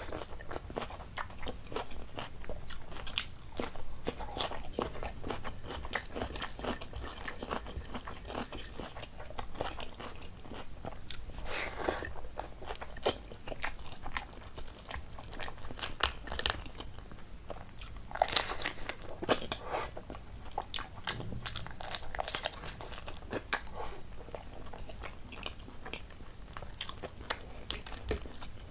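A person chewing and biting food close to the microphone: a steady run of small wet mouth clicks and crunches, with a few louder crunches, the loudest about two thirds of the way through.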